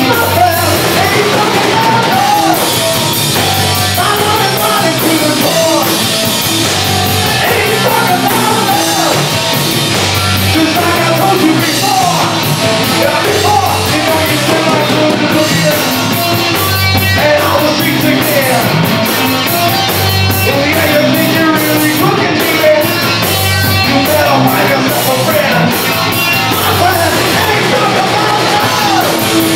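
Live rock band playing loud and steadily: an electric guitar solo over bass guitar and drum kit.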